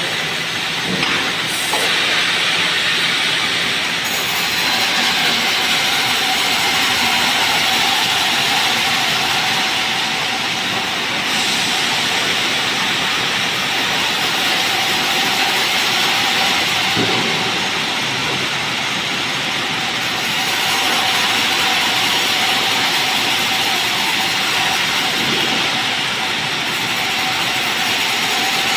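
Sawmill band saw ripping lengthwise through a merbau log: a loud, steady hiss of the blade in the wood over a steady whine from the machine.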